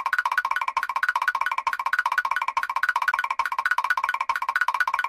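Mr. Krabs' cartoon walking sound effect, looped: quick pitched taps like a wood block, repeating in the same steady rhythm.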